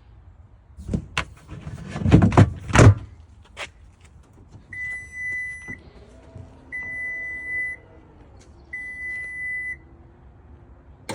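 A few clicks and knocks, then three long, evenly spaced electronic beeps from the Ford F-150 Lightning, with a faint electric motor whir under them as its power frunk lid moves.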